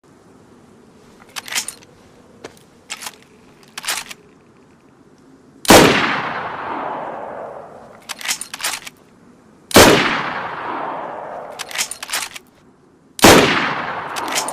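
Mosin-Nagant M91/30 bolt-action rifle in 7.62×54R firing three shots about four seconds apart, each with a long echoing tail. Quick metallic clicks of the bolt being worked come before the first shot and between the shots.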